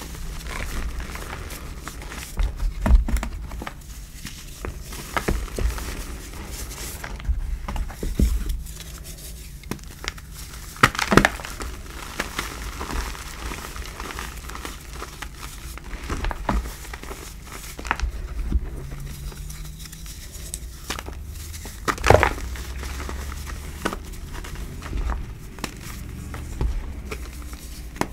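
Hands crushing and crumbling reformed gym chalk blocks, soft powdery black and crunchier gray, over loose chalk dust: a soft crumbling with irregular crunches and crackles, and two sharper, louder crunches about eleven and twenty-two seconds in.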